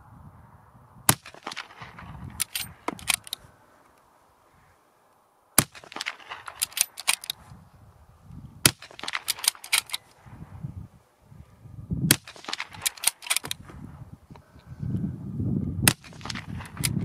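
Five .308 Winchester rifle shots from a Tikka T3X CTR fitted with an MDT Elite muzzle brake, fired about three to four seconds apart. Each sharp crack is followed by a short scatter of fainter clicks and cracks.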